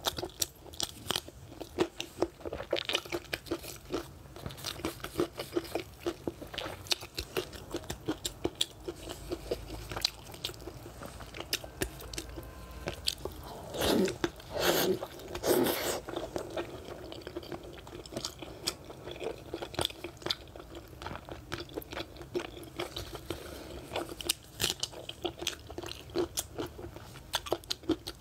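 Close-miked eating of braised pork belly: wet chewing with many sharp mouth clicks and lip smacks. About halfway through there is a louder stretch as a chunk is bitten into.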